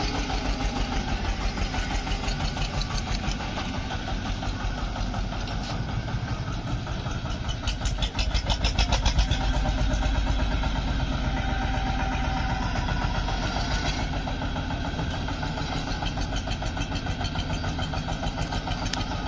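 Tractor diesel engine running under load as its front loader raises a full bucket, with a steady pulsing beat. It gets louder for a couple of seconds about eight seconds in.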